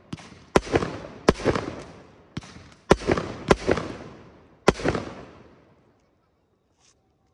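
Aerial firework shells bursting in a series of sharp bangs, about seven in the first five seconds, each followed by a rolling echo. The bangs then die away.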